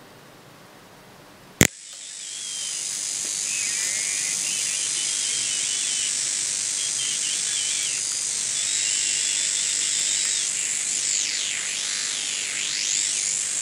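Homemade shortwave regenerative receiver: a sharp click about a second and a half in, then the set's hiss comes up with a high steady whistle and faint warbling signals behind it. Near the end, heterodyne whistles swoop down and back up as the knob is turned across stations.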